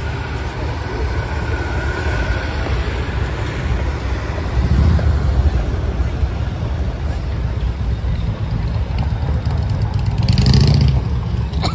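Road traffic on a busy city street: a steady low rumble of cars and trucks, with louder vehicles passing about five seconds in and again near the end.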